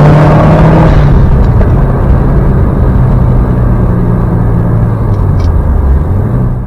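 Subaru WRX STI's turbocharged flat-four engine running on the road. Its note holds for about a second, then sinks slowly as the revs fall, and lifts a little near the end.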